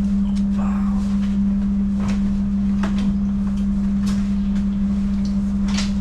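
Steady low hum inside a stationary passenger train carriage, with rustling and a few light knocks as a backpack is lifted onto the overhead luggage rack.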